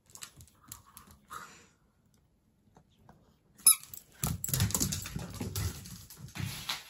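A puppy's rubber squeaky ball gives one loud squeak a little past halfway, followed by a Jack Russell Terrier puppy's paws and claws scrabbling and clattering on a wooden floor as she dashes after the thrown ball.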